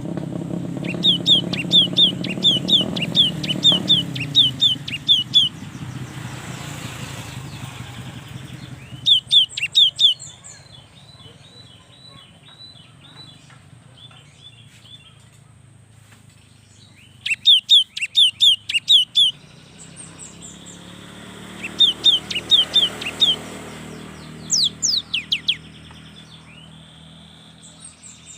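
Cinereous tit (gelatik batu) singing: bursts of rapid, repeated high notes, a few seconds each, separated by pauses, with fainter runs of softer notes in between.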